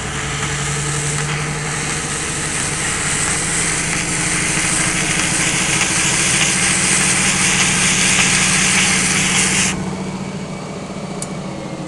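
A treadmill's motor and belt run at high speed with a steady hum, under a loud, continuous scraping of a small plastic Polly Pocket doll held against the moving belt. The scraping cuts off abruptly near the end. The motor's whine then falls in pitch as the treadmill winds down.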